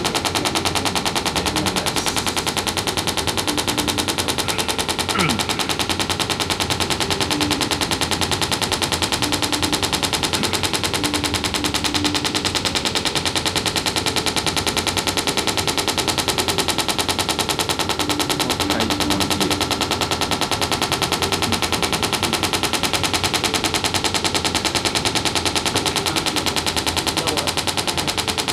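Electric massage device running steadily, giving a very fast, even pounding rhythm against the body.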